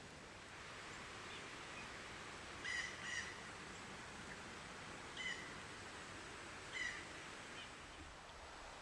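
A bird giving four short, nasal calls over steady outdoor hiss: two in quick succession, then two more spaced a second or two apart.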